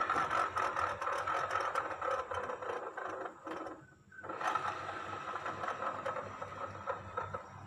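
Rear wheel and CVT transmission of a Yamaha Mio Sporty scooter spun by hand with the engine off, giving a continuous rough, rattly grinding. It fades out a little past halfway and starts again as the wheel is pushed round once more. The mechanic takes the roughness to indicate a worn bearing inside the CVT case.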